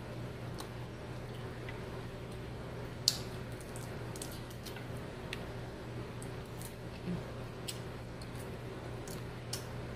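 Close-up eating sounds of shrimp being chewed: wet squishing and scattered mouth clicks and smacks, with one sharper click about three seconds in.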